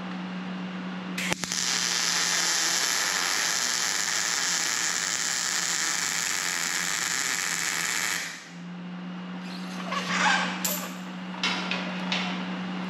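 MIG welder arc burning a weld into steel on a truck frame rail: a steady crackling hiss that starts about a second in and stops after about seven seconds. A few short clicks and scrapes follow after the arc stops.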